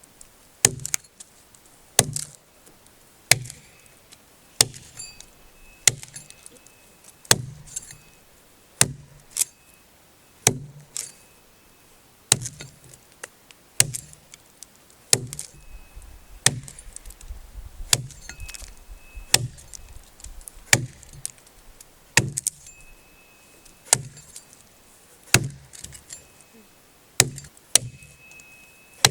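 An old Soviet axe chopping through a log: sharp, regular blows, one about every second and a half.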